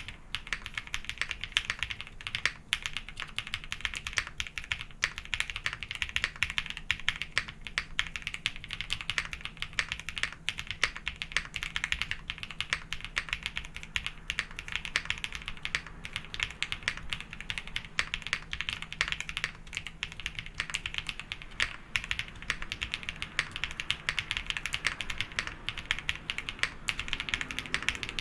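Continuous fast typing on a GrayStudio Space65 R3 custom mechanical keyboard with Gateron Creamsoda switches, PBT keycaps and an FR4 plate: a dense, unbroken run of key clicks.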